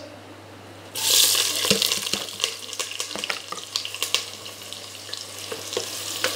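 Sliced onions and chillies hitting hot oil in a pressure cooker pan: a loud sizzle starts suddenly about a second in and carries on as frying with scattered pops while a ladle stirs.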